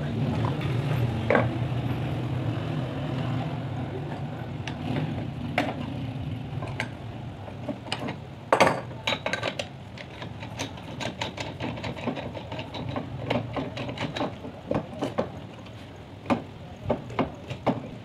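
Hand tools clicking and knocking against a ceiling fan's metal motor housing as its cover screws are undone. There is a low steady hum in the first few seconds, a loud knock about halfway, then irregular sharp clicks and taps, two or three a second.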